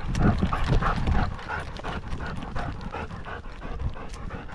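A dog panting rhythmically, about three breaths a second, right at a camera strapped to its harness as it moves through brush. Low thumps from the jostling harness camera are loudest in the first second or so.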